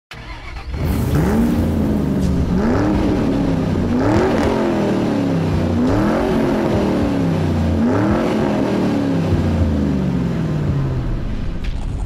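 A car engine revved about five times, each time the pitch rising quickly and sinking back slowly before the next rev.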